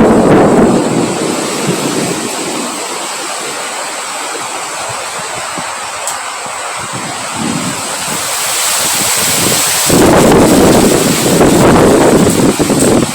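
Wind blowing in gusts: a rushing noise, loud at first, easing off in the middle, then building again to strong gusts in the last few seconds.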